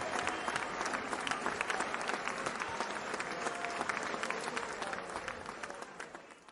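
Crowd applauding, a dense patter of many hands clapping, fading out near the end.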